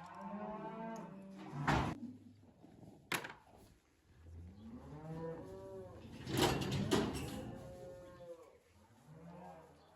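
Cattle mooing, several long calls that rise and fall in pitch, with a few sharp knocks in between.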